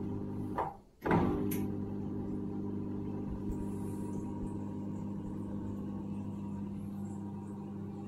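Candy C04 1272 D1 washing machine running with a steady, even hum. About a second in the sound briefly drops away and then comes back with a sharp jolt, and the hum carries on.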